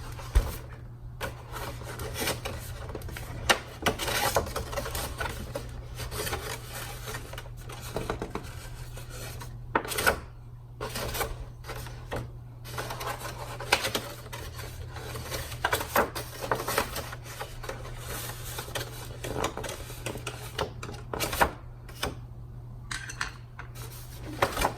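Stiff cardstock paper petals being curled by hand: irregular strokes of paper rubbing and crinkling, with a few sharp taps.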